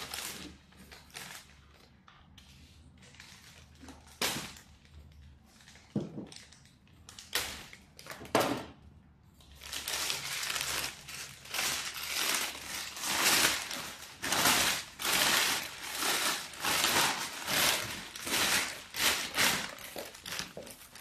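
Large plastic bag of BTMS flakes crinkling and rustling as it is handled and opened, with a few separate knocks in the first half. From about ten seconds in, the crinkling is loud and near-continuous as a hand works inside the bag.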